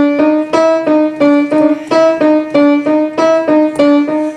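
Piano playing a short, fast, repeating melody of single notes, about four a second, moving back and forth between a few neighbouring pitches in the middle range.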